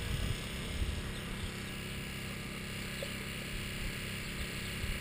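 A faint, steady engine drone with outdoor background noise, and wind rumbling on the microphone in the first moment.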